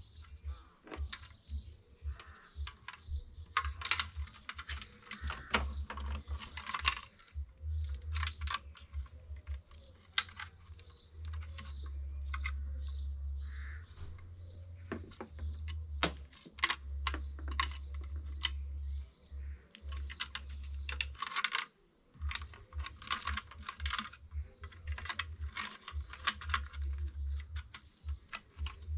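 Irregular light plastic clicks and taps as a repaired tailgate boot lid handle is handled and offered up against the tailgate, over a low rumble that comes and goes.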